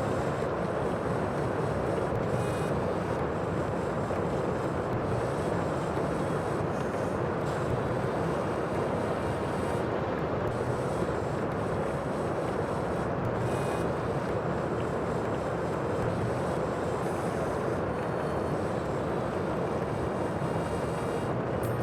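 Steady rushing sea and wind noise, even in level, with no separate wave breaks standing out.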